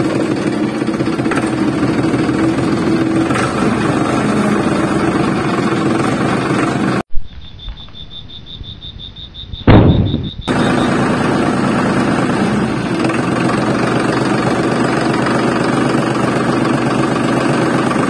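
A small motor running steadily with a fast rattle. About seven seconds in it gives way to a quieter stretch with a rapid high ticking and one sharp knock, then comes back unchanged for the rest of the time.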